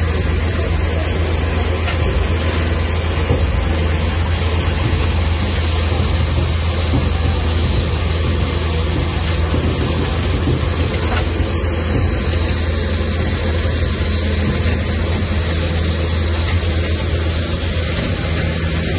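Steady low drone and rumble of a railroad turntable turning with a steam locomotive on it, unchanging throughout.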